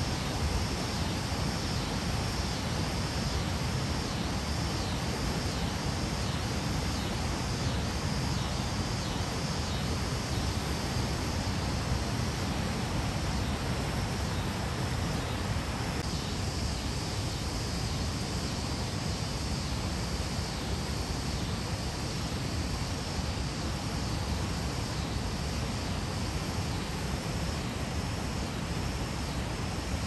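River waterfall: water pouring in a steady rush, an even noise with no pauses, its tone changing slightly about halfway through.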